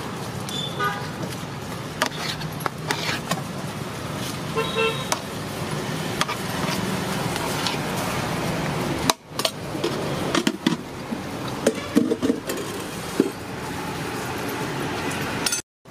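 Roadside street ambience: traffic noise with a vehicle horn toot about five seconds in and scattered sharp clicks. The sound drops out briefly near the end.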